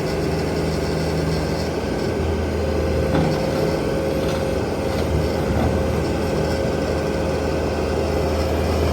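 Bobcat T770 track loader's diesel engine running steadily, with a faint steady higher-pitched whine above the engine note.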